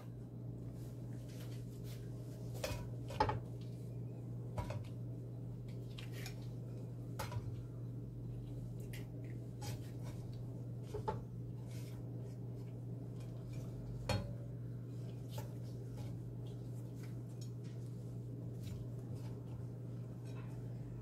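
Scattered clinks and knocks on a stainless-steel frying pan as pieces of semi-dried eel are placed and arranged in it. The loudest knocks come about three and fourteen seconds in, over a steady low hum.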